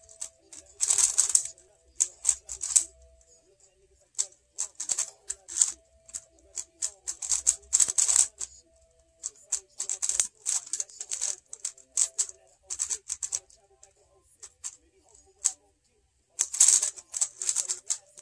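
Plastic megaminx being turned fast in a speedsolve: rapid bursts of clicking and rattling from the face turns, broken by short pauses.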